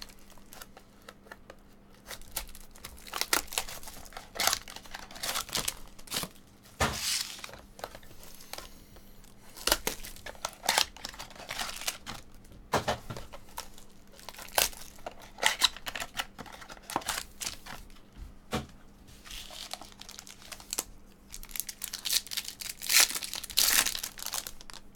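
Foil trading-card pack wrappers being crinkled and torn open by hand: irregular crackling and ripping, loudest near the end.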